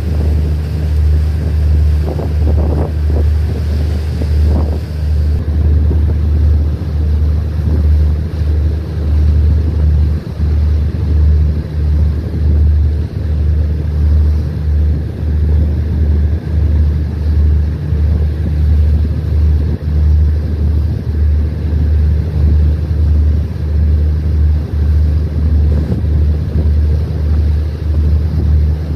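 Steady low rumble of a small boat under way, its engine drone mixed with wind buffeting the microphone and splashing water.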